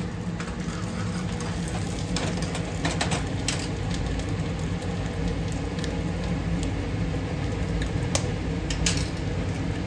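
Onion, chili and ginger frying in oil in a small pan on a gas burner, a steady sizzle over a low hum. A few sharp clicks come a few seconds in and again near the end.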